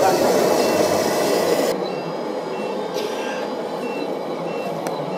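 Gravel pouring out of a tipped model tipper trailer. After a cut about two seconds in, a model truck's reversing beeper sounds in short, evenly spaced high beeps.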